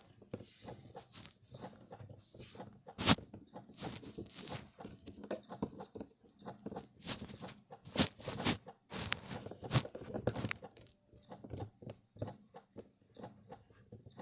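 Irregular clicks, taps and light scraping of small plastic toys and props being handled and set down, with the loudest knock about three seconds in and a cluster of knocks around eight to ten seconds in, over a faint steady hiss.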